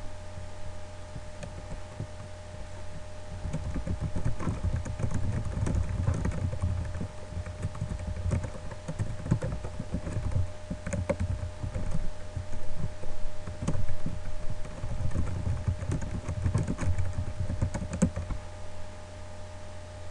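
Typing on a computer keyboard: an irregular run of key clicks that begins a few seconds in and stops near the end, over a steady electrical hum.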